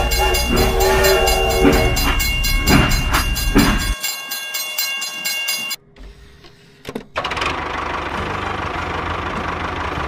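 Toy steam train sound effects: whistle-like tones over a rhythmic clatter. These stop about four seconds in, and after a short lull a steady hissing runs on.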